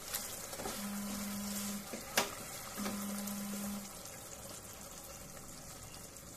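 Chicken gravy with boiled eggs simmering in a nonstick pan on a gas stove, with a wooden spatula stirring during the first few seconds and a single sharp knock about two seconds in. A low hum comes and goes twice in roughly one-second spells, and the simmer carries on alone and a little quieter after about four seconds.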